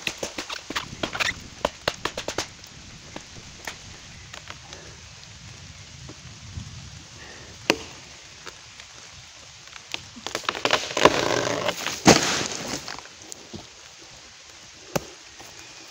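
Tramontina machete chopping into a standing tree trunk: a quick run of blows at the start, then a few single strikes. About ten seconds in, a loud crackling crash lasting two to three seconds as the tree falls.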